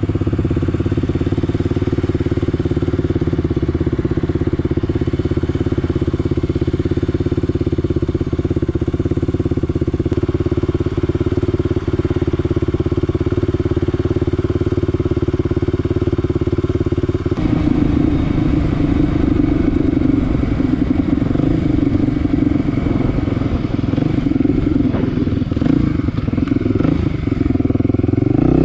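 Kawasaki KLX 250's single-cylinder four-stroke engine running under way at a steady speed; about two-thirds through, the engine note becomes unsteady, rising and falling.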